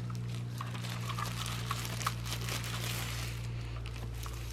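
Plastic packaging crinkling and crackling as a new mechanical keyboard is unwrapped from its plastic bag by hand, in many small crackles over a steady low hum.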